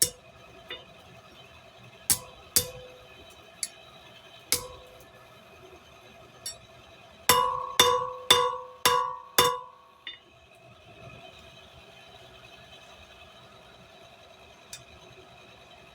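Hand hammer striking steel stock on an anvil during forging, each blow ringing. A few spaced blows come first, then a quick run of five about half a second apart, and the hammering stops about ten seconds in.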